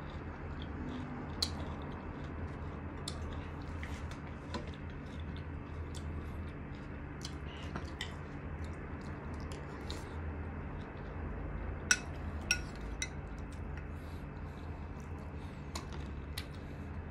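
Eating sounds: chewing, with scattered sharp clicks of cutlery against a dish, the loudest two coming close together about two-thirds of the way in. A steady low hum runs underneath.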